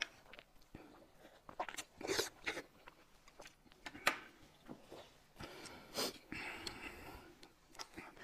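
Close-miked eating sounds: chewing, with scattered short smacks and clicks of the mouth.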